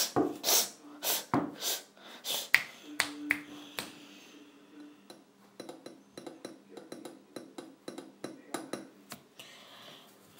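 Trampoline clicking and knocking as wrestlers land and move on the mat: a quick run of sharp clicks, dense for about the first four seconds, then sparser and fainter.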